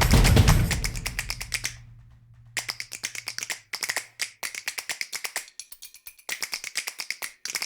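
Rapid, crisp clicking in short runs, several clicks a second, with brief silent gaps between the runs. A low hum under the first half fades away about four seconds in.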